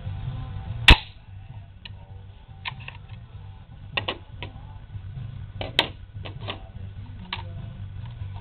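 Metal clicks and clacks of a Smith & Wesson M&P 15-22 .22 rifle being handled and taken apart, with one loud sharp snap about a second in and a scatter of lighter clicks after it.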